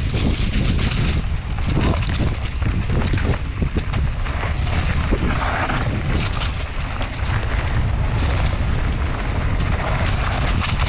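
Wind rushing over the microphone of a camera on a mountain bike riding dirt singletrack, a steady loud rumble with many small knocks and rattles from the rough trail.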